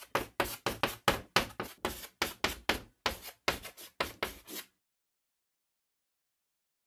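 Dry tapping sound effect, one short sharp tap per character as title text writes itself out on a chalkboard graphic, about four taps a second. The taps stop suddenly after about four and a half seconds, once the title is complete.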